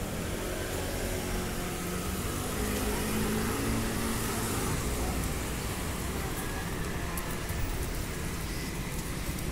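Road traffic: car and scooter engines running steadily, with a vehicle's engine hum strongest in the first few seconds.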